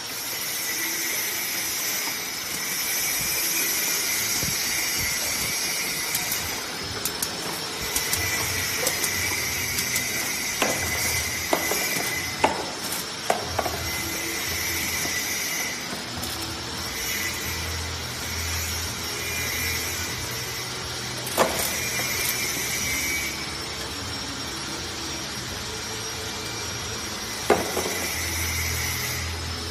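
Tissue-carton box sealing and packing machine running: a steady mechanical whir with a high, slowly wavering whine, and a low hum that joins about a quarter of the way in. Several sharp clicks stand out, a cluster near the middle and a couple more later.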